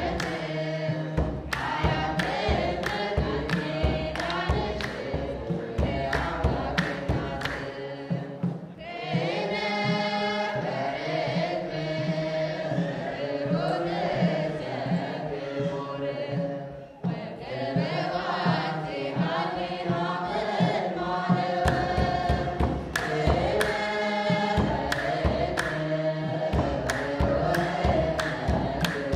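Ethiopian Orthodox mezmur: a choir singing a hymn over a steady percussion beat. About nine seconds in the beat and low end drop back under a higher voice line, and the full choir and beat return after about seventeen seconds.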